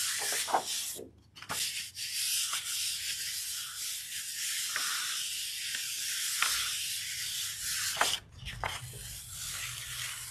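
Hands rubbing over the back of a sheet of paper laid on a gel printing plate, burnishing it to pull a print: a steady dry hiss, with a short pause about a second in and another near eight seconds.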